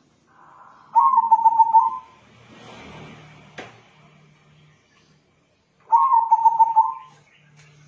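Zebra dove (perkutut) of a local crossing line cooing in a soft voice. It gives two rapid trilled phrases of coo notes, each about a second long, about five seconds apart.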